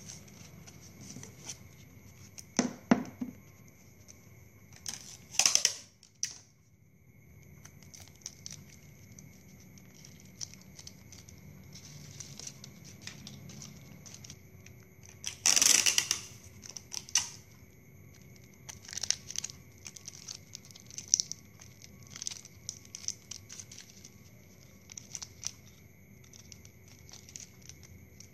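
Plastic drinking-straw palm fronds and floral tape crinkling and rustling as they are handled, in scattered small crackles with a few louder rustles about three, five and a half and fifteen and a half seconds in.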